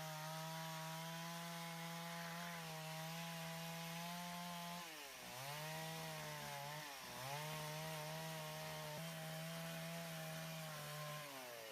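A chainsaw running steadily while trimming log ends, its engine note dipping twice, about five and seven seconds in, as it bogs under load in the cut.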